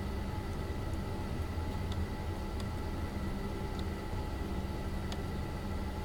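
Steady low rumble of city background noise with faint steady hum tones and a few faint ticks; no thunderclap stands out.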